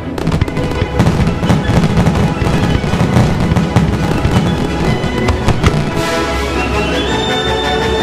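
Fireworks bursting and crackling in quick succession, mixed with music; from about six seconds in, the music's held tones climb in pitch.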